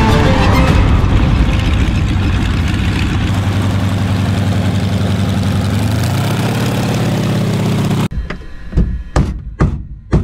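Yak-52's nine-cylinder radial engine idling as the aircraft taxis. The engine sound stops abruptly near the end, followed by a few short knocks.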